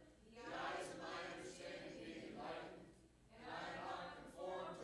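Several voices singing a worship song together in phrases, with short breaks between lines near the start and about three seconds in.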